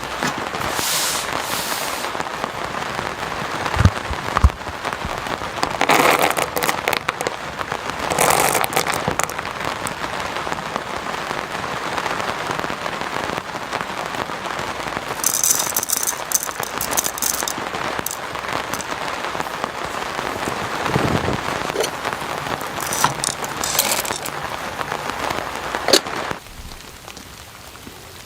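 Heavy rain falling in a dense, steady patter with scattered sharper crackles and a couple of dull knocks. It drops off abruptly near the end.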